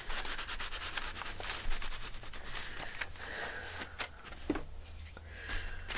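A cloth rubbed in quick strokes over paper on a journal page, smoothing down pasted collage pieces. The rubbing eases off after about three to four seconds.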